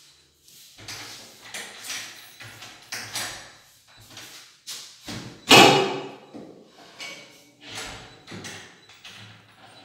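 Irregular wooden knocks and bumps from a wooden wardrobe being handled and fitted inside, with one much louder thud about five and a half seconds in.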